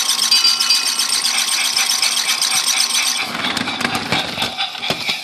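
Battery-powered Trackmaster Toby toy engine running along plastic track, its small electric motor and gears whirring steadily. About three seconds in, the sound shifts as a lower rattle of wheels on the track joins in.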